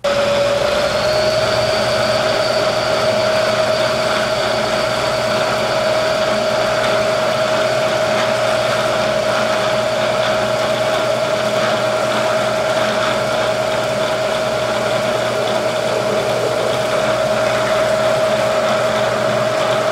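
Bridgeport milling machine spindle starting abruptly and running at a steady speed while drilling a hole in bar stock. It gives a steady whine that settles to its pitch within the first second, over an even mechanical hum.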